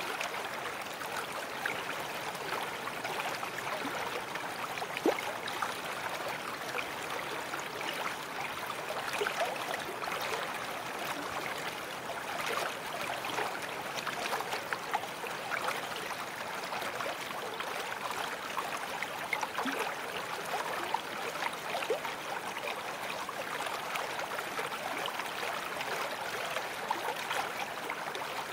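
Babbling brook: water running steadily over stones, with a dense patter of small splashes and gurgles.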